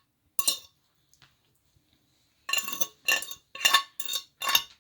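A spoon scraping and clinking against a dish while scooping out a thick fig-and-garlic paste: one stroke, a pause, then a run of about six quick scrapes at roughly two a second.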